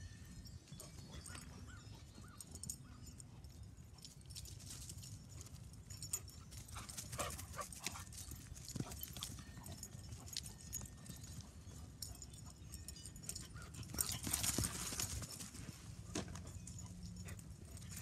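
Two dogs playing rough together on grass: faint scuffling and footfalls with brief dog vocal sounds, louder for a moment toward the end, over a low wind rumble.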